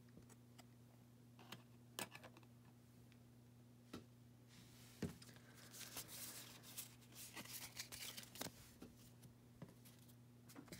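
Faint handling of trading cards and small plastic card stands: scattered light clicks and taps, with soft rustling of cards for a few seconds around the middle, over a steady low hum.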